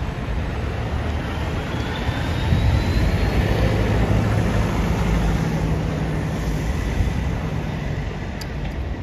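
London double-decker buses passing close in traffic, a steady low engine rumble that swells as a New Routemaster hybrid bus pulls past. A faint rising whine is heard in the first few seconds.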